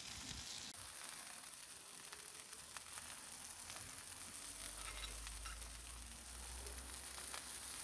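Potato slices frying on a hot oiled plancha, a soft steady sizzle with scattered faint pops.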